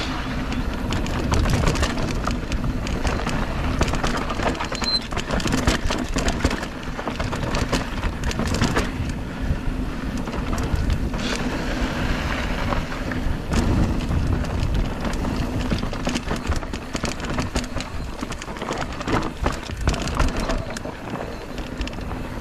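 Polygon Siskiu T7 mountain bike rolling down a dry dirt trail: knobby tyres crunching over dirt, leaf litter and loose stones, with constant small clicks and rattles from the bike over bumps and a low rumble.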